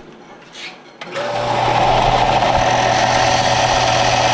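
Combination belt and disc sander switched on with a click about a second in, its motor spinning up quickly and then running steadily with a constant hum and whir.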